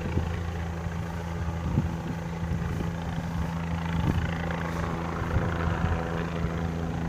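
State police helicopter flying overhead, a steady low drone from its rotors and engine.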